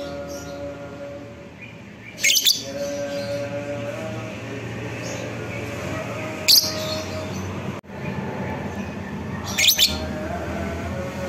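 Fischer's lovebird calling: three short, loud, shrill chirps a few seconds apart, over a steady humming background.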